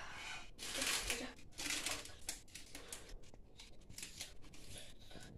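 Faint, uneven scraping and rustling of small objects being handled by hand.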